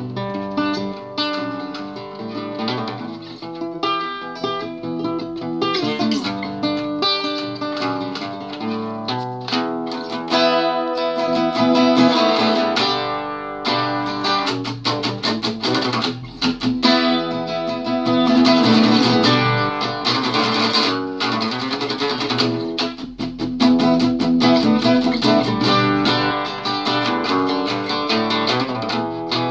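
Solo classical guitar playing, a mix of picked notes and strummed chords.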